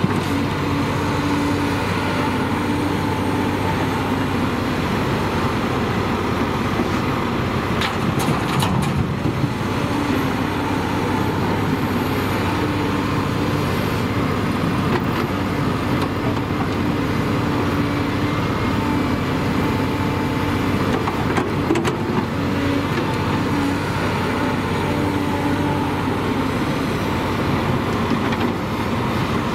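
Volvo EC210B excavator's diesel engine running steadily under digging load, its note shifting as the hydraulics work the boom and bucket through frozen dirt. A few sharp clanks come about eight seconds in and again past the twenty-second mark.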